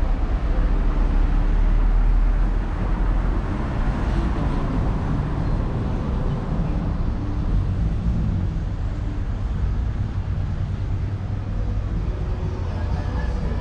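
Street traffic: a steady low rumble of passing vehicles' engines and tyres, loudest in the first couple of seconds.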